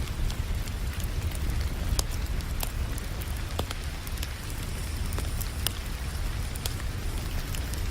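Fireplace wood fire crackling with scattered sharp pops, over a steady hiss of rain.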